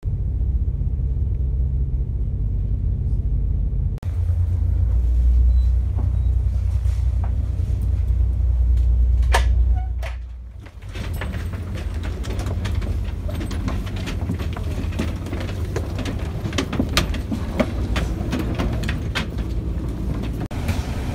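Deep, steady engine rumble heard inside a Red Jet high-speed passenger catamaran's cabin, heavier for several seconds in the middle and briefly dropping away about ten seconds in. After that the rumble carries on under many short knocks and clatters as people move about the cabin.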